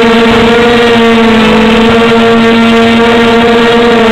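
A 250mm quadcopter's electric motors and propellers whining loudly and steadily at a near-constant pitch, picked up close by the drone's own onboard camera.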